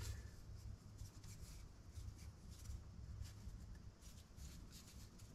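Faint scratching and light clicking of thin wooden kit pieces rubbed and pressed together by hand while a wooden gear is assembled.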